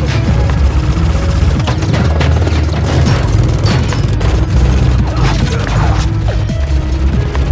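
Action-film sound mix: rapid gunfire and bullet impacts with heavy booms, over a low rumbling score.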